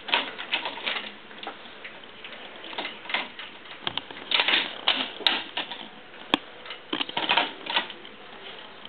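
Plastic baby-toy links and a rattle clacking against a crib rail as a toddler handles them: irregular clusters of clicks and rattling with short pauses between.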